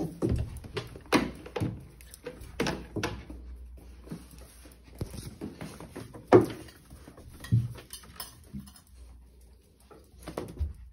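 Pomeranian and Dalmatian puppies scuffling on a tiled floor: an irregular string of sharp thumps and knocks, the loudest about six seconds in.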